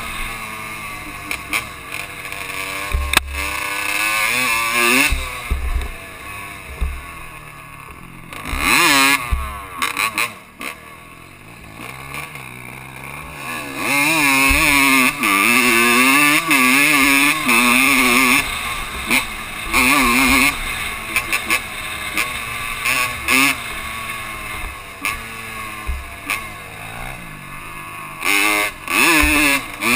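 Dirt bike engine being ridden hard, its revs rising and falling over and over as the throttle is worked, with wind buffeting the microphone. It backs off to a quieter run for several seconds about a third of the way in, then revs high again.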